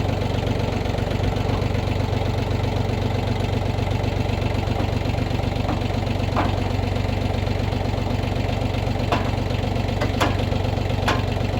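An engine idling steadily, with three sharp knocks in the last few seconds.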